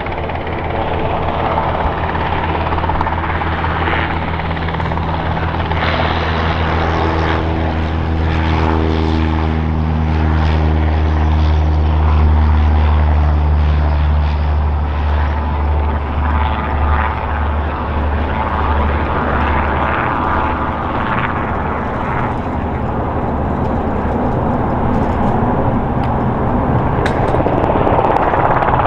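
Robinson R22 Beta II helicopter hovering and moving low: its two-bladed main rotor and four-cylinder Lycoming piston engine give a steady drone with a low hum. The low hum fades about two-thirds of the way through, and the sound grows louder again near the end.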